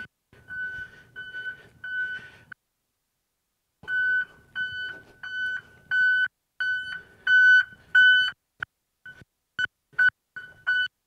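School bus reverse backup alarm beeping about twice a second at one steady high pitch, sounding because the reverse signal is engaged. The beeping drops out for about a second and a half early on, and near the end comes only in short clipped blips.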